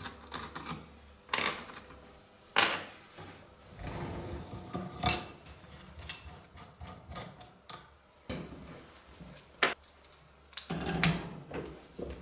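Metal parts of a bicycle hub clinking and clicking as it is handled and worked by hand in a bench vise, with about six sharp knocks of metal on wood and metal, and light rubbing in between.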